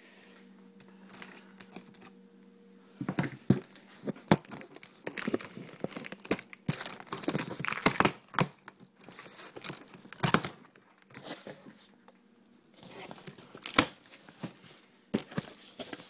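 Cardboard box flaps and the plastic bag around a PC case being handled: crinkling, rustling and tearing noises in dense bursts, starting about three seconds in, easing off around twelve seconds and picking up again briefly near the end.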